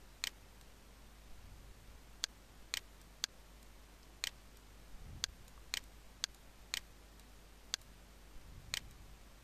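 Computer mouse buttons clicking, about ten sharp single clicks at irregular half-second to one-second intervals, over a faint low hum.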